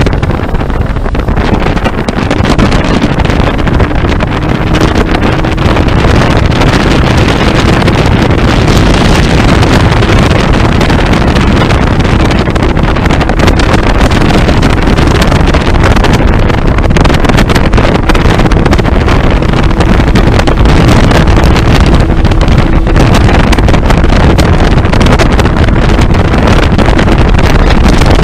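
Motorboat running steadily under way with a faint steady engine tone, buried under loud wind buffeting on the microphone.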